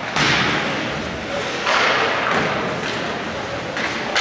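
Ice hockey play: sudden scraping hisses of skate blades on the ice and a thud against the boards, the loudest just after the start and two more about a second and a half later.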